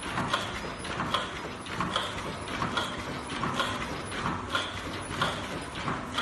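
Automatic high-speed face-mask production machine running, its mechanisms clacking in an even cycle about every 0.7 seconds as it turns out masks at around 80 to 90 a minute.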